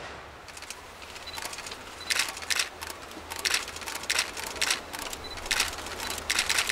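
Camera shutters firing in bursts of rapid clicks, becoming a dense, fast run of clicks near the end.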